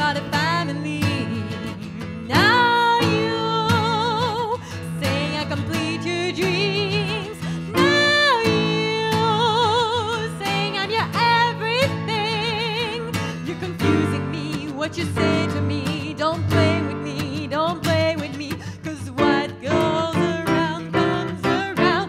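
Live band music: a woman sings long, wavering held notes with vibrato, accompanied by acoustic guitar and keyboard. The guitar strumming becomes busier and more rhythmic a little past halfway.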